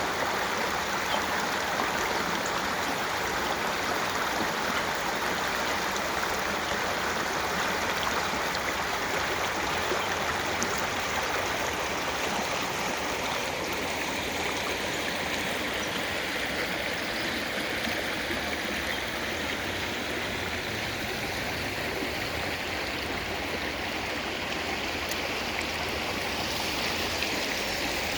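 Running water flowing steadily, an even rushing sound with no pauses.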